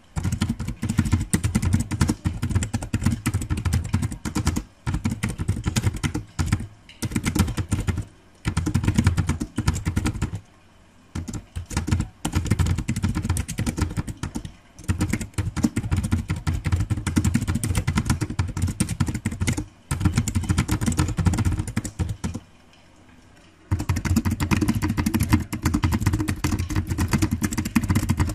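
Fast typing on a computer keyboard, a dense run of key clicks broken by short pauses, the longest a little over a second about ten and about twenty-two seconds in.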